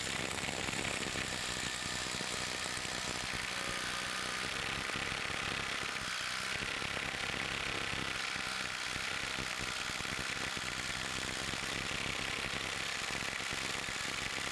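DeWalt DCF850 compact impact driver, converted to an impact wrench with a swapped-in anvil, hammering continuously on a bolt in a torque tester: a fast, even rattle of impacts that stops abruptly near the end. It doesn't sound very happy.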